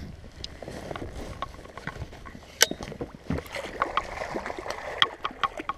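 Water splashing and lapping at the side of a small fishing boat, with scattered clicks and knocks of fishing gear on the boat; the sharpest knock comes about two and a half seconds in.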